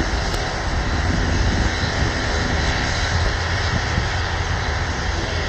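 Twin-engine jet airliner on the runway: a steady jet engine noise with a deep rumble underneath.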